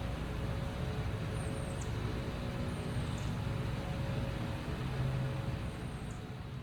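Steady low outdoor rumble of vehicle noise with a faint hum. A small bird gives three short, high, falling chirps, about 1.5, 3 and 6 seconds in.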